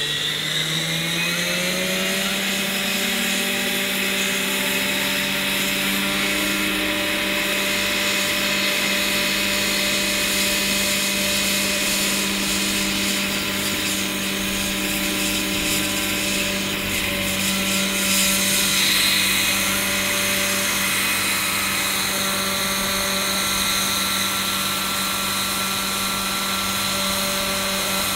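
Large electric Vario SA-341/342 Gazelle scale model helicopter spooling up. The motor's whine rises in pitch over the first couple of seconds, then holds steady as the 2.36 m main rotor runs at flight speed through lift-off.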